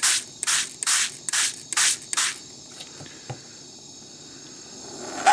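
Heat-block gel spray squirted from a hand-pumped spray bottle, about six quick squirts at roughly two a second, then a light knock. A gas torch starts hissing right at the end.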